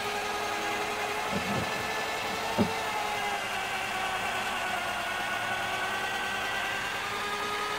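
Lobster Elite tennis ball launcher running with no balls loaded, powered by a newly fitted 12-volt battery: its motors hum steadily with several whining tones as the throwing wheels spin. Two faint knocks come in the first three seconds.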